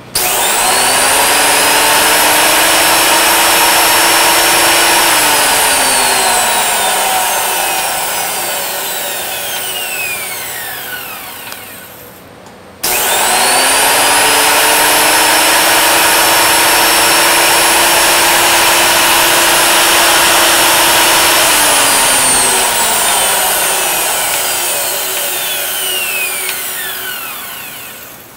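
Makita 2012NB portable thickness planer switched on, spinning up to a steady whine, then switched off and coasting down with a falling whine; it is started and wound down a second time about halfway through. A ticking or clicking comes from the machine as it winds down.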